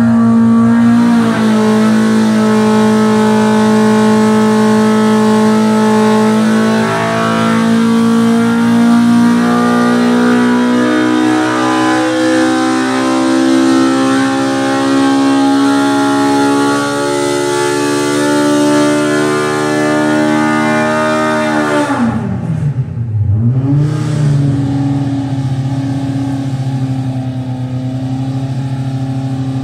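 Big-bore Polaris Pro R four-cylinder engine with a 3D-printed 68 mm prototype throttle body making a dyno pull: it runs steadily at high revs, then climbs slowly in pitch as it pulls up through the rev range under load. About 22 seconds in the throttle closes, the revs fall sharply and dip, and the engine settles at a steady lower speed.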